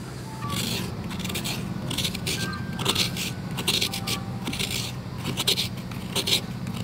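Coconut flesh being scraped out of a half shell with a hand-held serrated coconut scraper, in repeated rasping strokes about two to three a second, starting about half a second in.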